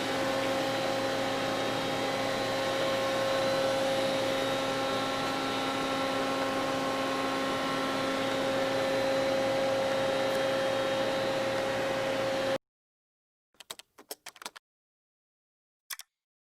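Doosan Puma 600L CNC lathe running: a steady machine hum with a high whine that cuts off abruptly about twelve and a half seconds in. A few short faint blips follow.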